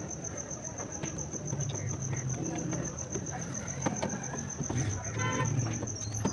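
A cricket chirping steadily, a high rapid pulsing trill, with scattered light clicks and faint background voices.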